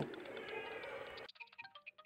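Faint room noise, then about a second in it cuts abruptly to quiet background music of light, chime-like ringing notes.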